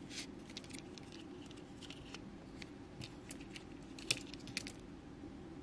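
Light clicks and taps of small hand tools being handled, a measuring caliper set against the jaw of bail-making pliers, with the sharpest click about four seconds in. A low steady hum of room tone lies underneath.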